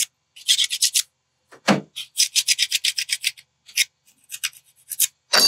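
Quick, rhythmic scraping strokes, about eight a second in short bursts, as caked-on sawdust and bar-oil grime is scraped off a chainsaw's bar-mounting area on the power head. A single knock a little under two seconds in.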